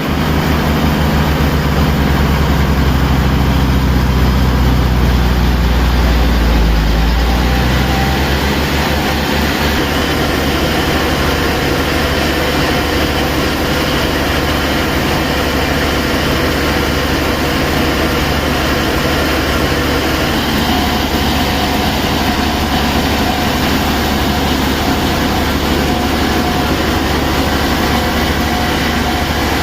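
Sawmill machinery running steadily. Its low rumble is heaviest for the first seven or eight seconds, then eases into a steady hum.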